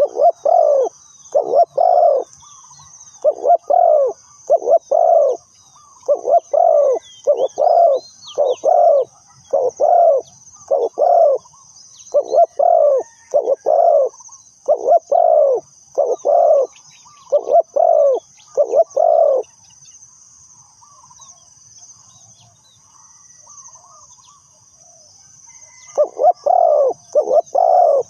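Spotted dove cooing in repeated short phrases of two or three low coos. It falls silent for several seconds about two-thirds of the way through and starts again near the end, over a steady high-pitched buzz.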